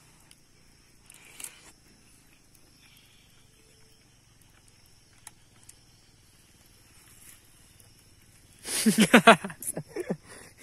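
A man's short burst of rapid, voiced huffs and exclamations, loud, about nine seconds in, as he reacts to a hot mouthful of stew. Before that there are only a few faint clinks of a metal spoon against the pot.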